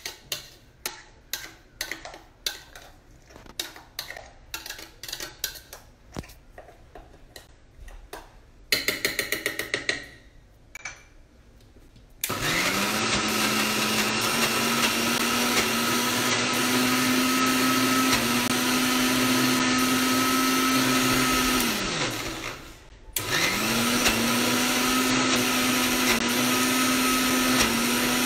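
Electric mixer grinder with a stainless steel jar blending raw chicken with egg white. The motor starts about twelve seconds in and runs steadily for about ten seconds, winds down and stops, then starts again and runs on. Before it there are scattered clicks and knocks.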